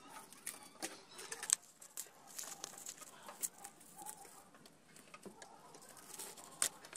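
Clear plastic wrap crinkling and crackling in irregular bursts as it is peeled and pulled off a steel sword blade.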